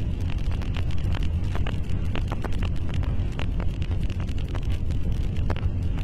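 Loud steady low rumble with short sharp crackles scattered through it, a sound effect in a homemade mock EAS alarm.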